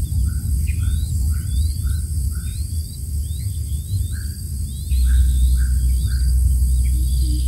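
Small bird chirping: short notes repeated two or three times a second, with quick rising notes above them, over a steady low rumble that grows louder about five seconds in.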